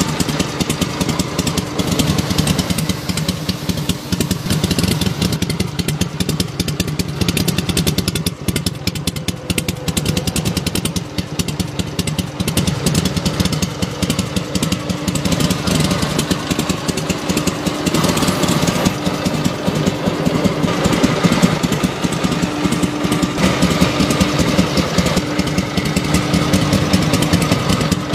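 Replica S&S 1948 Harley-Davidson Panhead V-twin engine running steadily at idle.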